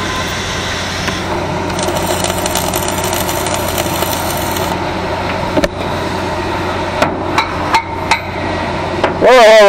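Several sharp hammer knocks on steel in the second half, over a steady machine hum. Near the end a loud wavering pitched sound sets in.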